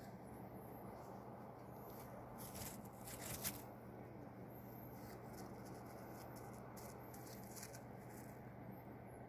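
Quiet room tone with a steady low hum, and a short spell of rustling and handling noise from clothing and the camera about two and a half to three and a half seconds in. Faint high squeaks sound now and then.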